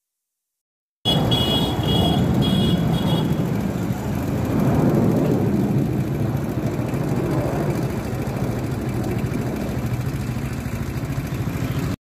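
After about a second of silence, a steady low rumbling noise begins, with three short high tones soon after it starts.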